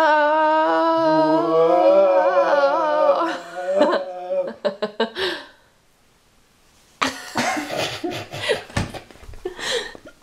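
A person's voice holding one long, wavering sung note, then a few seconds later a burst of laughter.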